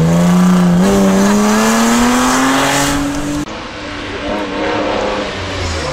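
BMW E30 rally car's engine at full throttle, accelerating hard away from a corner, its pitch climbing steadily for about three seconds. It then cuts off suddenly to a quieter, more distant engine sound.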